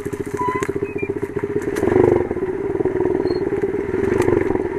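Small 110 cc dirt bike engine running with a fast, even pulse, picking up revs briefly about two seconds in and again near the end, with light clattering from the bike on the rough trail.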